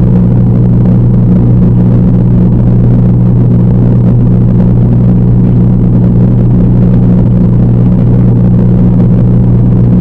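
Aquarium water pump's loud, steady low hum, heard through the water by a submerged camera's microphone.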